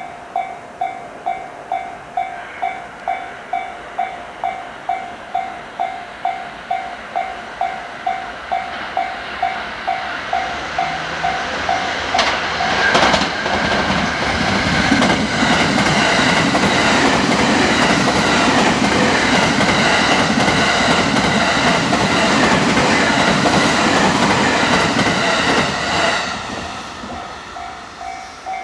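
Japanese level-crossing warning bell ringing steadily as a freight train approaches. About twelve seconds in, the long train passes and its wheels clatter over the rail joints, drowning the bell. Near the end the train clears and the bell rings out again.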